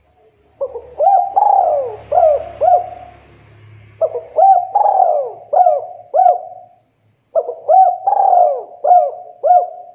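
Spotted dove cooing: three phrases, each a quick run of several short coos, with brief pauses between them.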